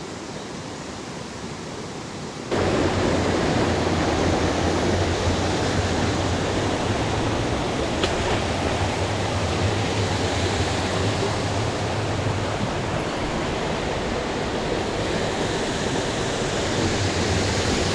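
Rushing mountain-stream water: a steady roar of noise that jumps suddenly louder about two and a half seconds in.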